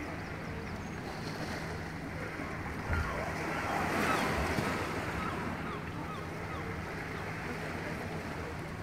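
Small waves washing in over a stony, seaweed-covered shore, with wind on the microphone; the wash swells louder for a couple of seconds about three seconds in.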